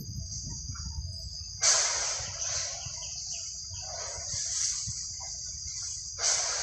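Chorus of insects buzzing steadily at a high pitch, swelling suddenly about a second and a half in and again near the end.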